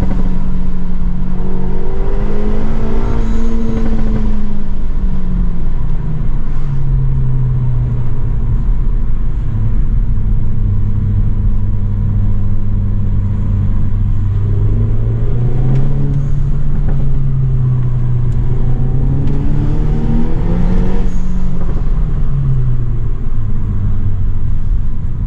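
Renault Mégane RS Trophy's 1.8-litre turbocharged four-cylinder engine heard from inside the cabin. The revs rise briefly, then sink to a low steady drone as the car slows. They climb again about two-thirds of the way through and fall back near the end.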